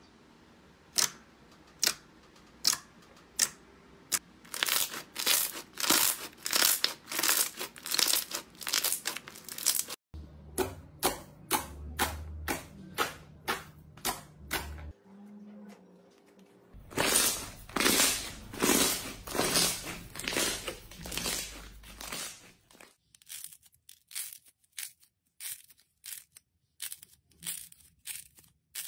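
Crunchy slime being squeezed and pressed, crackling and crinkling in repeated short bursts about two a second. The background changes abruptly several times as one clip gives way to the next.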